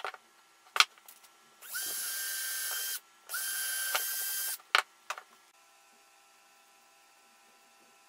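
A power drill running in two short bursts of about a second and a half, its motor whine rising as it spins up each time, while holes are drilled in a small MDF switch housing. Sharp knocks from the housing being handled come on the bench just before and just after the drilling.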